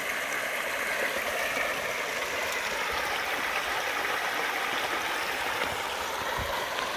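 Mountain stream running over rocks: a steady rush of water with no break.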